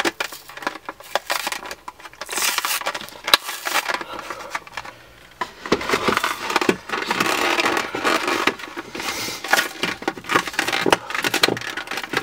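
Plastic blister pack and cardboard backing card of a diecast model being handled and opened by hand, making irregular crackles, clicks and rustles.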